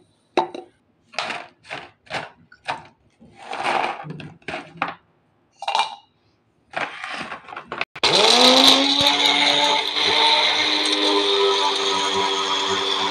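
Short knocks and clatter of a plastic grinder jar being handled and fitted, then about eight seconds in a small electric personal blender's motor starts, whining up to speed and then running steadily as it dry-grinds poppy seeds.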